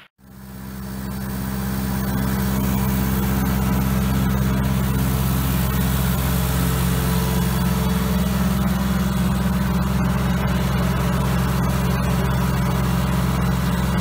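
Case 530 tractor engine running steadily with the Foley Belsaw M-14 circle sawmill blade spinning free, not yet in the cut. The sound fades in over the first couple of seconds.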